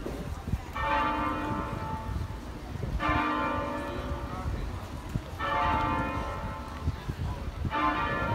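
Level crossing audible warning alarm sounding in repeated tone bursts, each about a second and a half long, starting about every two and a half seconds.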